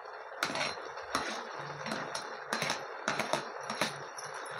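Perforated steel slotted spoon scraping and tapping against a plastic tray and a steel kadai as chopped tomatoes are pushed into the pan of cooked greens. It is a run of irregular clicks and knocks over a steady frying hiss.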